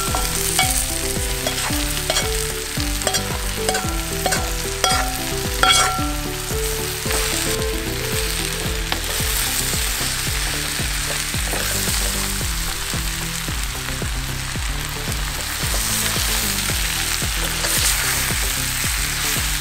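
Marinated chicken sizzling as it fries in hot coconut oil with shallots, stirred with a wooden spatula. There are a few sharp knocks of the spatula and pan in the first several seconds, and background music plays under the sizzle.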